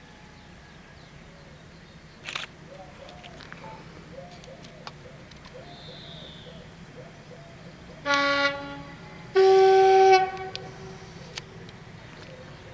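Diesel locomotive's two-tone horn sounded twice as the train approaches: a short lower blast, then about a second later a longer, louder, higher one.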